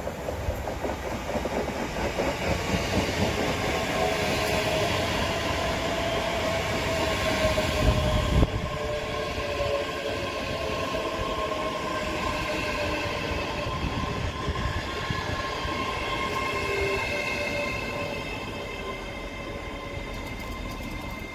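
ScotRail Class 385 electric multiple unit running into the platform and braking to a stop: wheels rumbling on the rails, with a loud knock about eight seconds in. The traction motor whine falls slowly in pitch as it slows, leaving a steady electrical whine once it has stopped.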